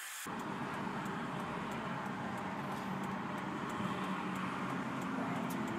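Steady car noise heard inside the cabin, an even mix of engine and road rumble, starting abruptly just after the start.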